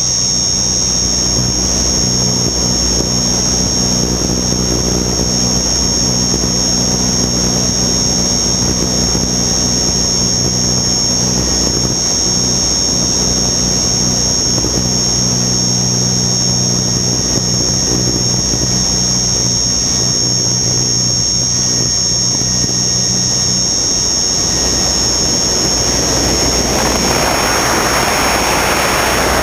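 Onboard sound of a radio-controlled aircraft in flight: a steady high motor whine over a low propeller drone, with rushing air noise. About 24 seconds in the low drone drops away and the rushing air grows louder as the aircraft tips into a steep bank.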